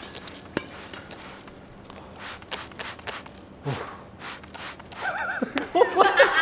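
A string of short, sharp, irregular sounds, then a man starts laughing about five seconds in, which is the loudest part.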